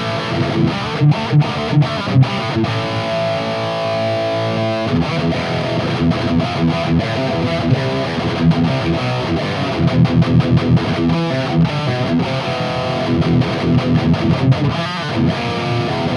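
High-gain distorted electric guitar played through a Mooer Brown Sound preamp pedal, a 5150-style amp emulation with its gain near one o'clock. It plays heavy, tightly muted chugging riffs, with a chord held for about two seconds a few seconds in.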